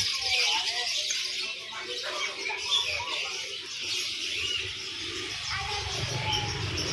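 Many small caged songbirds chirping at once, overlapping into a dense high-pitched chorus.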